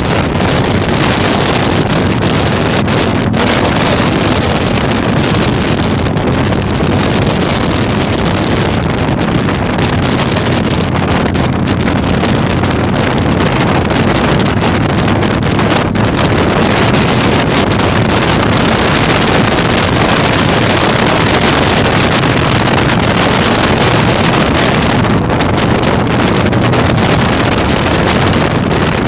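Heavy wind noise buffeting the microphone at riding speed, over the steady running of a Yamaha Virago 1100's V-twin engine.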